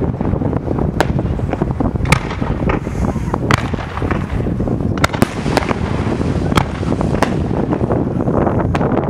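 Fireworks display: aerial shells bursting with sharp bangs at irregular intervals, about one a second, over a constant low rumble.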